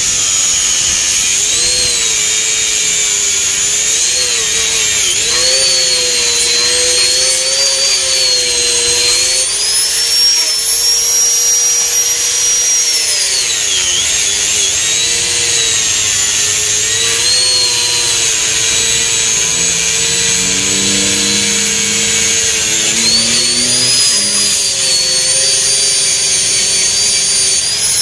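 Electric angle grinder running continuously, its high whine sagging and recovering in pitch as the disc bites into the edge of a fibreglass mould, with a deep dip about halfway through. The cut opens the seam of a ventilation-block mould.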